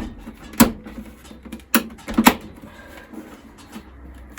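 Hard clicks and knocks of iMac G3 parts being handled and pushed into place: four loud ones in the first two and a half seconds, then fainter ticks and rattles.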